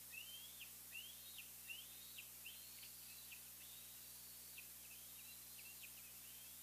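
Bald eagle calling: a faint string of thin, high whistled notes, each rising then falling, about two a second, with a short break about halfway through.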